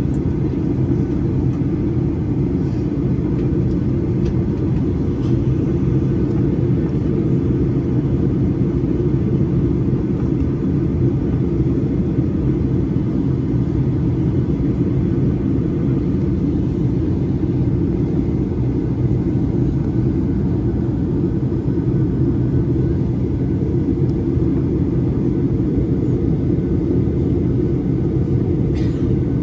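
Steady, unchanging low rumble of a Boeing 737-800 airliner's jet engines and airflow in flight.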